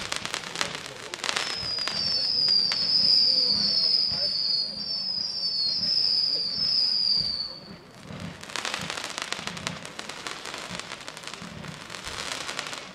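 Ground-fired consumer fireworks crackling. From about a second and a half in, a run of overlapping high whistles sounds for about six seconds, each sliding slightly down in pitch. Dense crackling follows.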